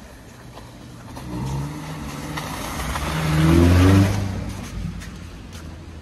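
SUV driving past on a snowy road. Its engine grows louder and rises in pitch as it accelerates, is loudest about four seconds in, then fades away.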